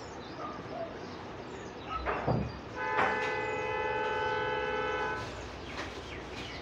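Oil sizzling steadily as pakoras deep-fry. From about three seconds in, a loud steady horn made of several held notes sounds for about two and a half seconds, then stops.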